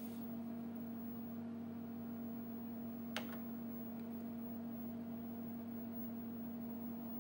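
Steady low electrical hum from a running HP-86B computer and its CRT monitor, with one sharp click about three seconds in.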